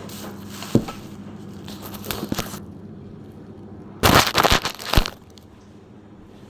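Kitchen handling noises: a sharp knock about a second in, then a loud, crackly rustle lasting about a second around four seconds in, ending in a sharp click.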